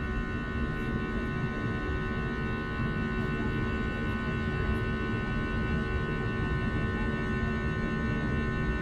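Airbus A321 cabin noise: a steady engine drone with a rumble underneath and several high, steady whining tones on top, holding level.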